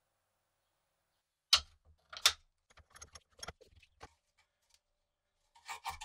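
Small metal key clicking and clinking: two sharp clicks less than a second apart, then a run of lighter ticks and clinks, and a few more just before the end.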